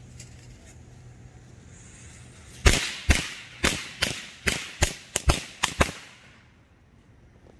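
A string of World Class Class Crackers firecrackers going off: about ten sharp bangs at an uneven pace over some three seconds. The bangs start a few seconds in, and the first is the loudest.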